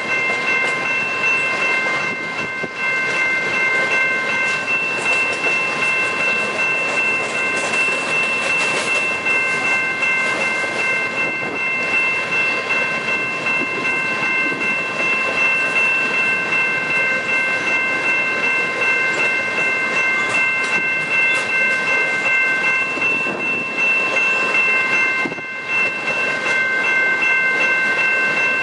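Loaded coal train cars rolling past on steel rails, with clacking from the wheels and a steady high-pitched tone held throughout.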